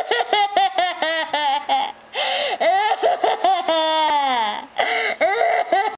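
Toddler laughing hysterically: quick high-pitched runs of 'ha-ha' bursts, then a long drawn-out laugh falling in pitch about four seconds in, and more bursts near the end.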